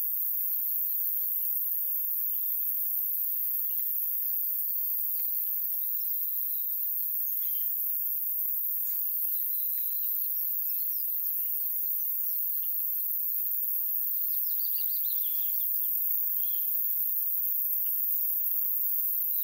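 Birds chirping and calling in short, repeated phrases over a steady high-pitched hiss.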